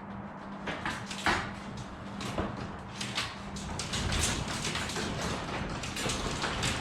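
Sectional garage door being moved by hand on its tracks, with irregular clicks and knocks from the rollers and panels, while its torsion springs' balance is being tested; the springs are still under-wound, so the door does not hold its position by itself.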